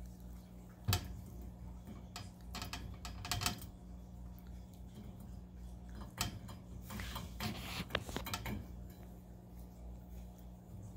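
Pomsky puppy chewing the playpen bars: irregular clicks and taps of its teeth on the bars, with a quick run of ticks about three seconds in and a longer spell of chewing and scraping around seven to eight seconds in.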